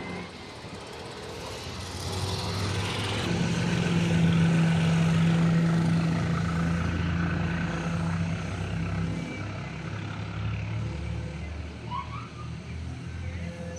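Engine drone of a passing vehicle, steady in pitch, swelling to its loudest about four to seven seconds in and then fading away.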